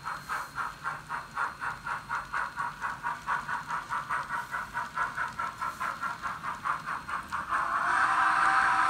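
Sound-decoder steam chuffing from a Kato N scale FEF steam locomotive with an ESU LokSound decoder, played through the model's small speaker at an even four to five chuffs a second. Near the end it gives way to a louder, steady sound.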